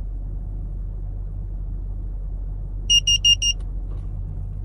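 Foxwell NT301 OBDII scan tool beeping four times in quick succession, high-pitched and electronic, as it links up with the car's computer. A steady low hum of the vehicle runs underneath inside the cabin.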